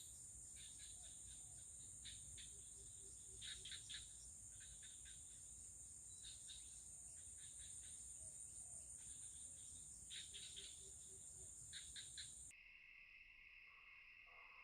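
Faint insect chorus: a steady high-pitched buzz with short bursts of chirping every couple of seconds. Near the end it switches abruptly to a lower, steady drone.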